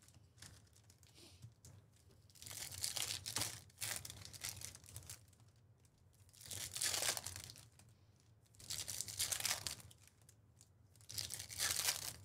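Foil trading-card pack wrappers being torn open and crinkled by hand, in about five short bursts a couple of seconds apart.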